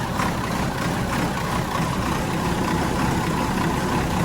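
Boat's mechanical diesel engines idling steadily just after being started cold.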